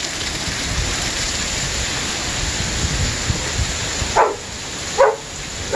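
Torrential microburst rain pouring onto the patio and pool, with strong wind gusting against the microphone. About four seconds in, a dog barks three times in quick succession.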